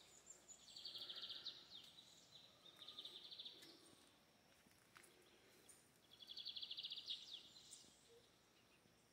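Faint outdoor ambience with three high, rapid trills from small animals, each about a second long: one near the start, one in the middle, one about two-thirds through.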